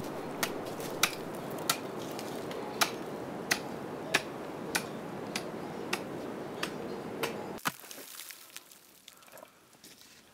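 A hiker walking on an icy snow trail: sharp clicks at walking pace, about one every two-thirds of a second, over a steady hiss. About three-quarters of the way through, the sound cuts to softer, quieter crunching steps in snow.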